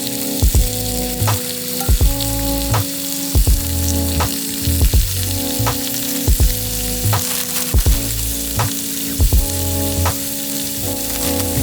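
Food sizzling in a hot pan, a steady frying hiss, under background music with a steady beat and sustained chords.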